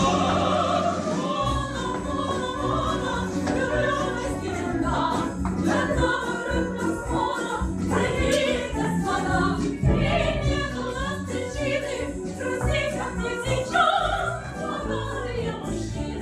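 A song plays: choir-like voices sing over an instrumental backing with a stepping bass line.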